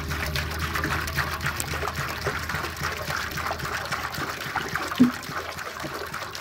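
Water pouring and splattering with a crackling, trickling sound over a steady low hum, with one sharp knock about five seconds in.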